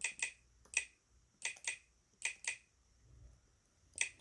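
Keys being pressed on a MacBook laptop keyboard while a password is typed: eight crisp key clicks, irregularly spaced and often in quick pairs.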